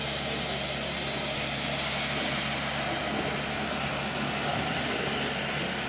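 CNC machine running steadily while cutting a part, a constant hiss-like machine noise with a low steady hum underneath.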